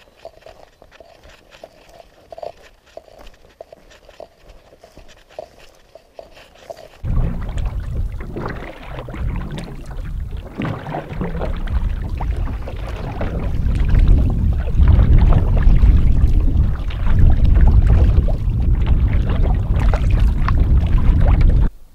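Quiet at first. About seven seconds in, a loud rush of wind on the microphone starts suddenly, with water splashing and slapping against a loaded canoe as it is paddled through choppy water. It grows louder midway and cuts off abruptly near the end.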